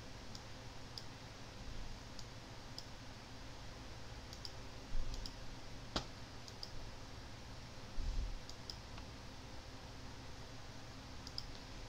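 Computer mouse clicking: scattered single and double clicks, one sharper click about six seconds in, over a steady low hum. Two dull low thumps come near five and eight seconds in.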